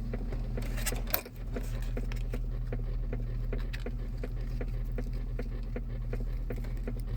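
Rapid, evenly spaced knocking from the center console area of a 2004 Chevrolet Tahoe, about three knocks a second, over the steady drone of the running truck. One sharper click comes about a second in. It sounds like something trying to open, and it does not go away.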